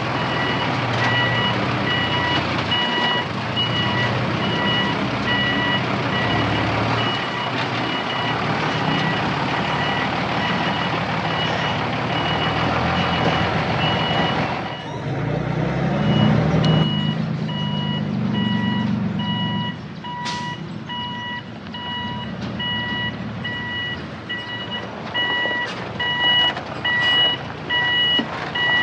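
Reversing alarm of a heavy machine beeping steadily over its running engine. The engine revs up for a few seconds about halfway through, then drops back.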